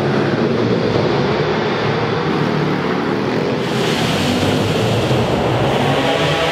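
Small pit bike and minibike engines running hard around a track, rising and falling in pitch with the throttle. The sound changes abruptly a little over halfway through.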